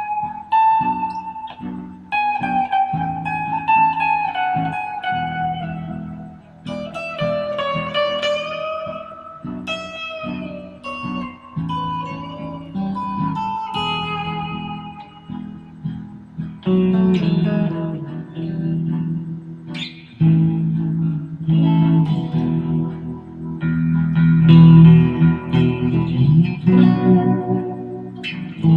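Fender Stratocaster electric guitar playing a slow single-note melody with bent and gliding notes. From about 17 seconds in it moves to fuller, louder chords.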